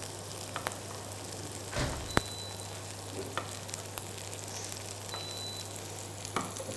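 Red onion and garlic sizzling steadily in olive oil in a frying pan, over a steady low hum. Sharp knife clicks on a cutting board as cherry tomatoes are sliced; the loudest comes about two seconds in.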